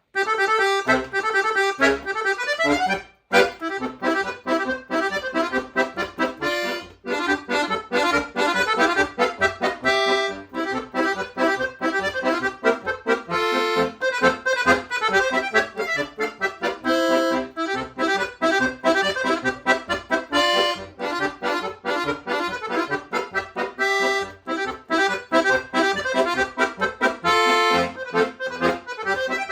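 Solo accordion playing, with many quick, short notes. It starts suddenly at the very beginning and breaks off briefly about three seconds in.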